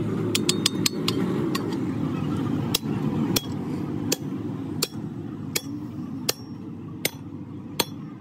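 Sledgehammer blows on a steel drift, driving a bronze bushing into a heavy truck's leaf-spring bracket housing: eight sharp metallic strikes, evenly spaced about one every 0.7 seconds. A few quick light clinks come in the first second.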